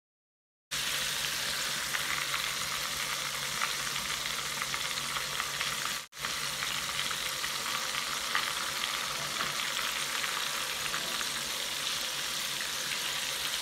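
Battered chicken drumsticks deep-frying in a saucepan of oil on low heat: a steady, dense sizzle and crackle. It starts just under a second in and breaks off briefly about six seconds in.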